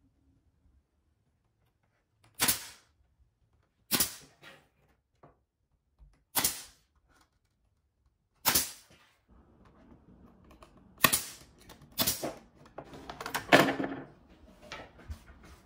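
Pneumatic brad nailer firing single shots into pine boards: about seven sharp cracks a second or two apart, with light knocks from handling the wood and tool in between toward the end.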